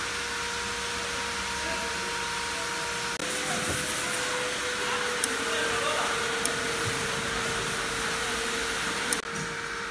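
Machinery running: a steady motor whine over a hiss. The whine steps in pitch at about three seconds and again near six, with a few sharp clicks later on.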